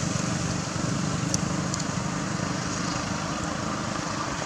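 A motor engine running steadily in the background.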